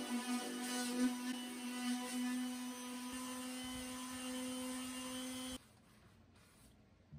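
Makita finishing sander, hooked to a shop vacuum, running with a steady hum while scuff sanding a wooden dresser's finish before painting. It cuts off about five and a half seconds in, leaving only faint sound.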